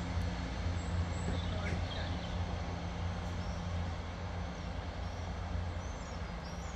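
Diesel multiple unit engine idling with a steady low hum, the train standing at the platform. Birds chirp faintly in the second half.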